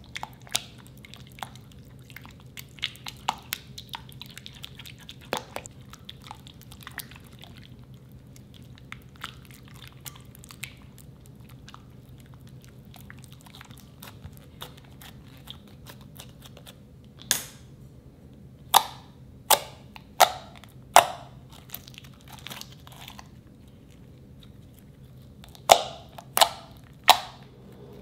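White slime being stirred and folded with a silicone spatula in a glass bowl: soft sticky crackles and clicks, then five sharp smacks in quick succession about two-thirds in and three more near the end. A faint steady hum runs underneath.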